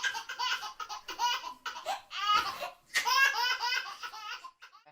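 Baby laughing hard in three bursts of quick, high-pitched laugh pulses, with short breaks between them.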